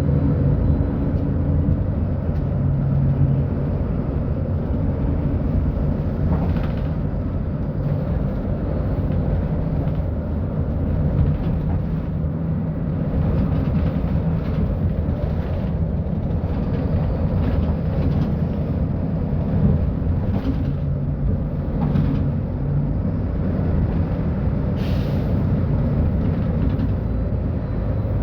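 Mercedes-Benz O-500U city bus engine running under way, a low steady hum that rises and falls slightly in pitch as engine speed changes with the ZF Ecolife automatic gearbox. There are a few light knocks, and a short air hiss near the end.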